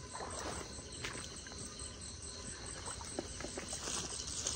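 Night-time insect chorus: a steady, high, evenly pulsing trill of chirping insects, with a few faint knocks.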